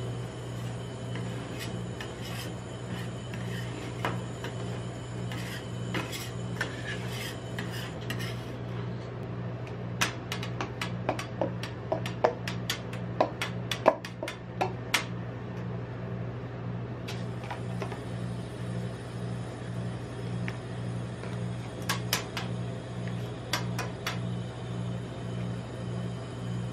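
Metal spatulas and tongs scraping and clicking against a steel rolled-ice-cream freezing plate as ice cream rolls are lifted into a paper cup, with a run of sharp clicks in the middle and a few more near the end. A steady low hum runs underneath.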